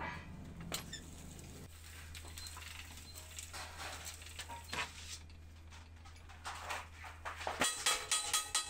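Light clicks, taps and scrapes of thin sheet metal being handled and fed into a roll-bending machine, over a steady low hum. Near the end the hum cuts off and rhythmic percussive music begins.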